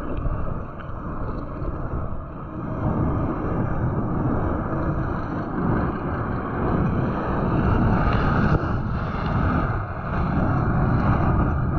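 Wind rushing over the microphone of a body-worn action camera on a moving mountain bike, with the rumble of its tyres on asphalt; the noise builds gradually in loudness.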